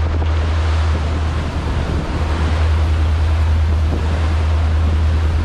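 Fishing boat under way trolling: a steady low engine drone under the rush of the churning wake, with wind buffeting the microphone.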